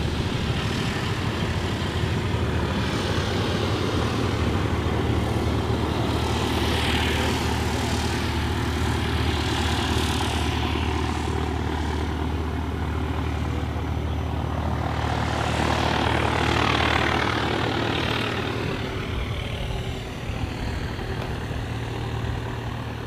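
Propeller-driven aircraft engine noise over a steady low hum. It swells twice, about a third of the way in and again past the middle, as aircraft pass.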